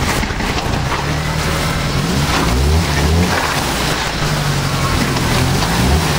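1993 Jeep Wrangler YJ's engine pulling under load as the Jeep crawls a rock over a rocky hill climb, its revs climbing and dropping a couple of seconds in, then holding steady.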